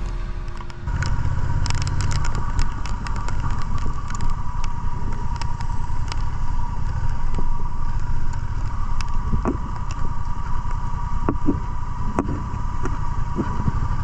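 Honda Rebel 1100's parallel-twin engine running at low speed, with a steady high whine and scattered sharp clicks of raindrops striking the camera.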